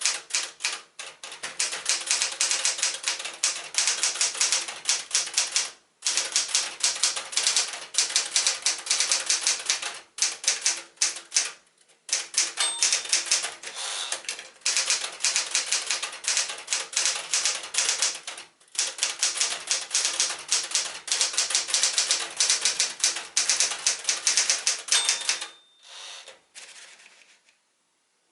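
A 1974 Smith-Corona Galaxie Twelve manual portable typewriter typing at speed, a fast run of key strikes broken by a few brief pauses. The typing stops about three seconds before the end, followed by a few quieter sounds.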